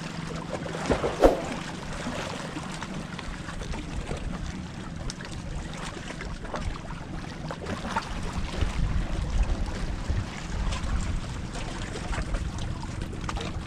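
Wind buffeting the microphone over the wash of the sea, with scattered small clicks and one sharp click about a second in; the rumble of the wind grows stronger near the end.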